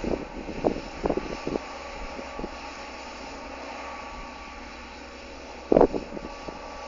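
Sugar beet harvesting machinery running steadily. A few short thuds come in the first second and a half, and a louder one follows near the end.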